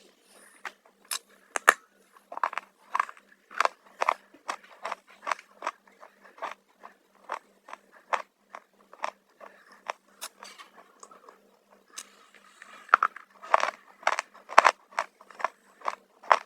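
Close-up crunching of crunchy black chips being chewed, with sharp crisp crunches about two or three a second. The crunches get louder for a stretch near the end.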